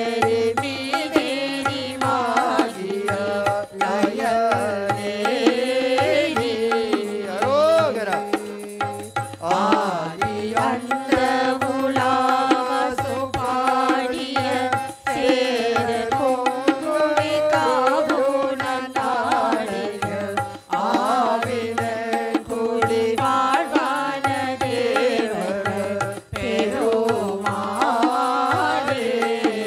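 A woman singing a devotional song over a PA, accompanied by tabla and harmonium, with the harmonium holding steady notes under the voice and the tabla keeping a regular beat.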